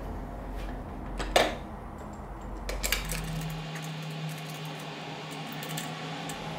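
A heavy wooden blank being handled and fitted into a metal four-jaw lathe chuck, which is tightened with a chuck key: one sharp knock with a brief ring about a second and a half in, a few smaller knocks just before three seconds, then a steady low hum.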